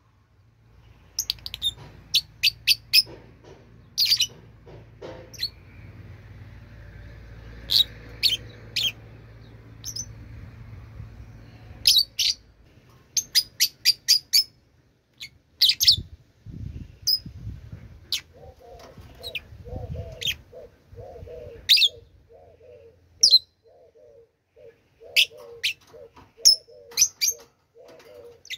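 Birds chirping in short, sharp, high notes. From about two-thirds of the way through, a lower call repeats about twice a second.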